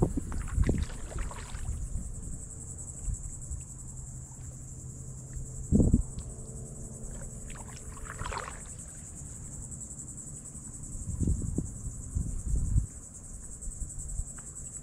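Steady high-pitched insect trill from the shoreline brush, with occasional low thumps and splashes of a paddle working the water beside a paddleboard.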